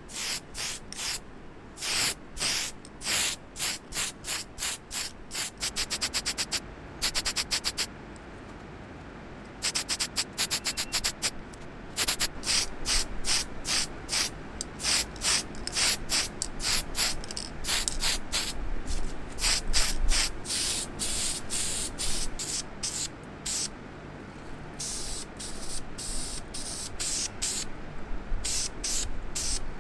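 Paint being sprayed in many short hissing bursts, some one at a time and some in quick runs of several a second, with a few brief pauses. A small model car part is being coated red.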